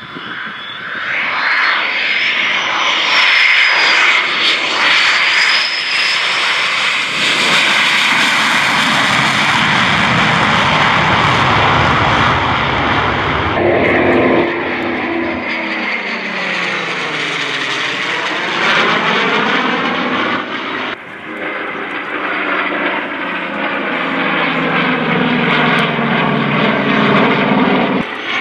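Jet noise from a Boeing F/A-18 Hornet's twin turbofans passing low, with a high whine that rises and falls in the first few seconds. About halfway through, the sound changes to the sweeping, phasing roar of an F/A-18 and a Vought F4U Corsair flying by in formation, the jet's roar mixed with the Corsair's piston engine.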